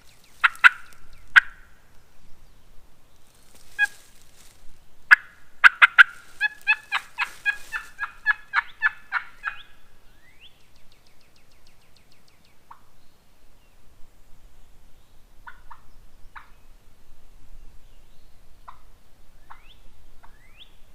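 A hunter's turkey call: a few sharp clucks, then a quick run of about a dozen yelps imitating a hen, calling to a gobbler. Faint small-bird chirps follow.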